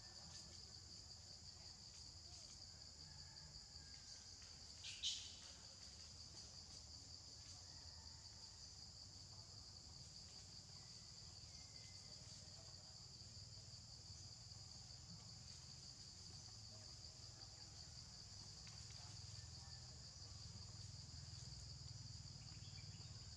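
Steady high-pitched chorus of forest insects, a fine pulsing drone throughout. About five seconds in, one brief sharp high note cuts across it, falling in pitch.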